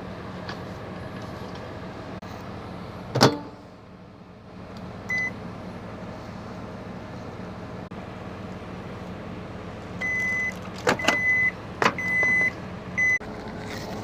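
A steady low engine-like hum. A loud sharp knock comes about three seconds in, then a series of short, high electronic beeps, mostly in the second half, mixed with a couple of sharp clicks.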